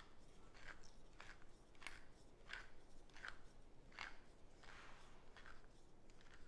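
Hand-twisted pepper mill grinding peppercorns: faint, regular crunchy rasps, about ten twists in a row, one every two-thirds of a second.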